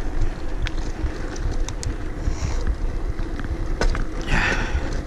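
Wind buffeting an action camera's microphone while riding a mountain bike, over steady tyre rumble. A few sharp clicks from the bike come through, and there is a short breathy hiss about four seconds in.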